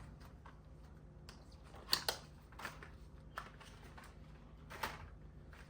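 Scattered light clicks and taps from handling small parts: a new spark plug being pulled from its box and packaging. The loudest pair of clicks comes about two seconds in, with fainter ones later, over a low steady hum.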